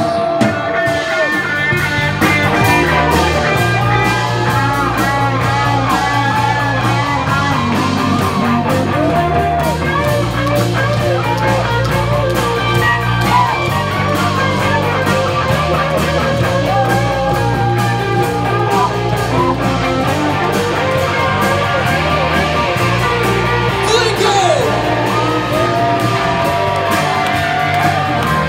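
Live rock band playing a song: electric guitars over a bass line and a drum kit with cymbals.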